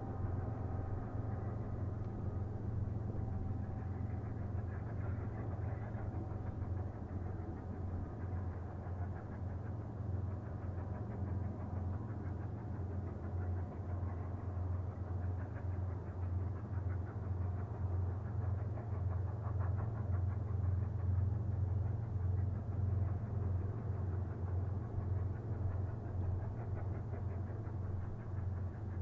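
Distant Union Pacific 844 steam train working upgrade: a steady low rumble with a fast, even pulse. The last echo of its whistle fades away over the first couple of seconds.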